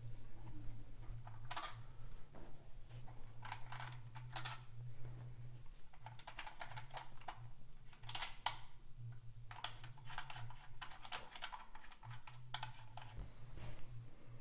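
Irregular small clicks and light metallic rattles at a bi-wireable speaker's rear terminals as the terminal nuts are undone and the metal links joining the terminal pairs are taken off, over a steady low hum.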